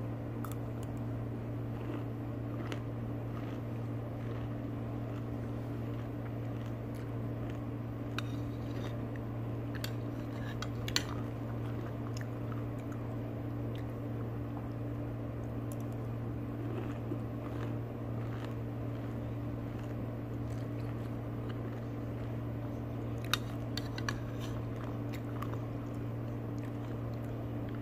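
A person eating pomegranate arils with a metal spoon from a ceramic bowl: quiet chewing and crunching, with a few sharp clicks of the spoon against the bowl. A steady low hum runs underneath.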